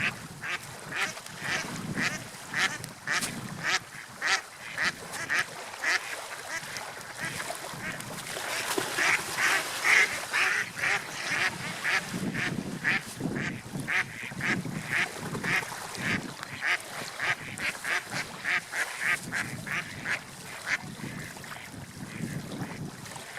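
A group of ducks quacking in a rapid, steady series of short calls, about two to three a second, loudest and most crowded around the middle.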